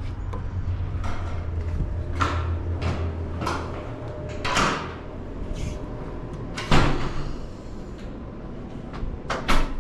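Aluminium-framed glass entrance doors being pulled open and swinging shut, with a series of handle and latch clunks; the loudest thud comes about two-thirds of the way through and a double clack near the end. A low hum stops about four seconds in.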